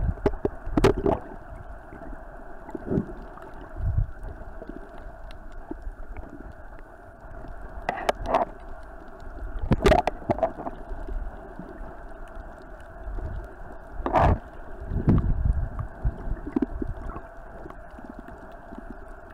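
Muffled underwater noise picked up by a submerged camera: a steady hiss broken by irregular thumps and sloshing bursts, the loudest about a second in, about ten seconds in and near fourteen seconds.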